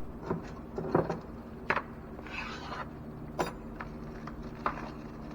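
Scattered light clicks and knocks, with a brief rustle a little after two seconds in, as a new intake manifold gasket set is handled and unpacked. A steady low hum runs underneath.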